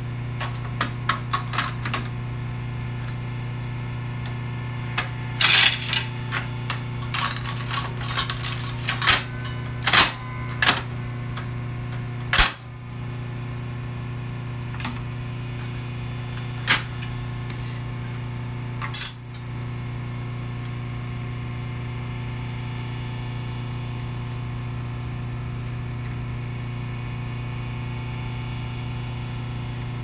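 Scattered metal clinks and knocks of tools and parts being handled, in clusters over the first dozen seconds and twice more later, over a steady low hum that runs on underneath.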